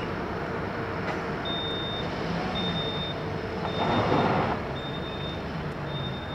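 Distant Cessna 208 Grand Caravan's Pratt & Whitney PT6A turboprop running as the aircraft rolls out after touchdown, a steady engine rumble with a low hum. A high beep repeats about once a second from about a second and a half in, like a vehicle's reversing alarm, and a short louder rush of noise comes about four seconds in.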